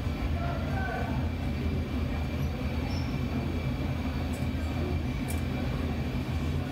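Steady low roar of a glassblowing studio's gas-fired furnace and its blower running, with a faint constant hum over it.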